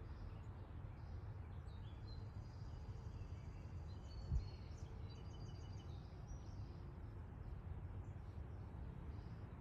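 Outdoor ambience: a steady low rumble with faint songbird chirps repeating through it, and a single low thump about four seconds in.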